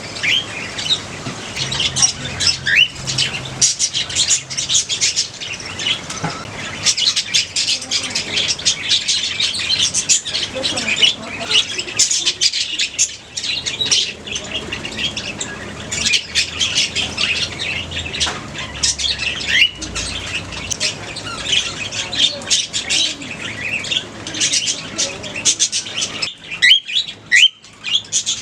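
A colony of budgerigars chattering and chirping, many birds at once with short squawks and rising whistles overlapping continuously.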